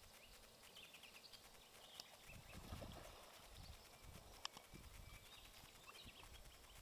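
Near silence: faint outdoor ambience by the water, with a few soft low rumbles and a couple of brief clicks.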